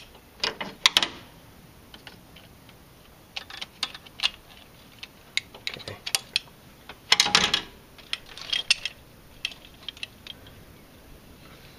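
Scattered clicks and light clatters of plastic clips and small metal parts being pried loose and handled around an engine's throttle-cable bracket, with a louder clatter about seven seconds in.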